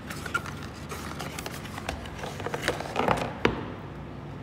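Hands handling a cardboard watch box and the paper cards packed inside it: sliding, rustling and light tapping, with a few sharper clicks about three seconds in.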